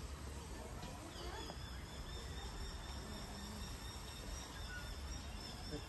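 Insects calling in the forest: a steady, high-pitched drone of two thin tones that sets in about a second in, over a low rumble.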